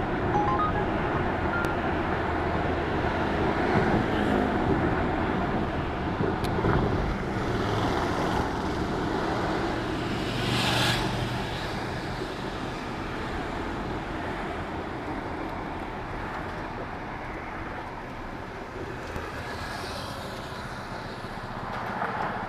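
Road traffic on a busy city avenue: cars and other vehicles passing in a continuous steady rumble. One vehicle passes louder about halfway through, and the traffic grows louder again near the end.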